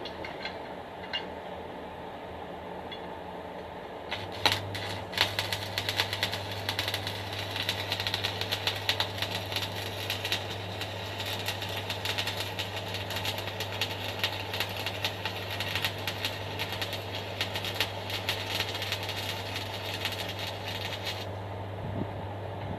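Stick (MMA) arc welding with an E6013 rod: the arc strikes about four seconds in, crackles and sizzles steadily with a low hum for about seventeen seconds, then breaks off near the end.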